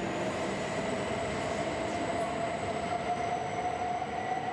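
H5 series Shinkansen train pulling out under power, with steady running noise from the wheels on the rails. Over it runs a whine from the traction motors that climbs slowly in pitch as the train gathers speed.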